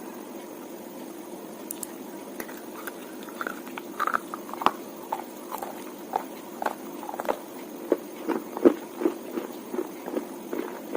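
Wet slate being bitten and chewed: irregular sharp crunches, a few a second, growing denser and louder from about four seconds in, over a steady low hum.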